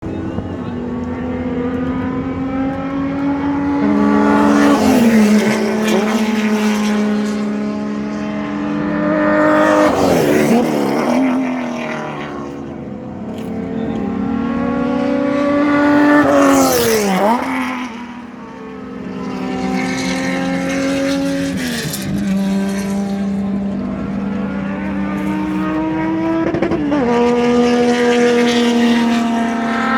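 TC Zonal race cars passing one after another on a circuit, engines at full throttle. The engine note climbs, then drops sharply as each car goes by, about five times.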